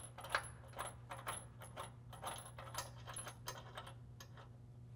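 Small metallic clinks and rattles of a bolt and washer being threaded by hand into a square backing nut inside a steel truck frame, a quick irregular run of taps that dies away after about four and a half seconds.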